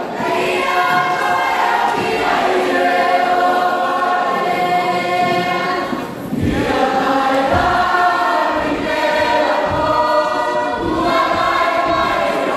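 A large Cook Islands performing group singing together as a choir. There is a short break about halfway through before the next phrase.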